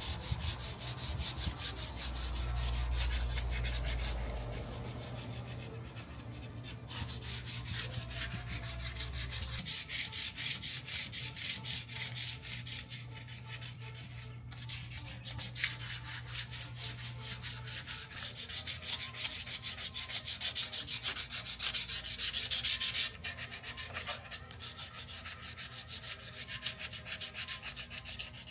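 Sandpaper rubbing back and forth over primed sheet metal in rapid, even strokes: a primed car engine bay being hand-sanded smooth before paint.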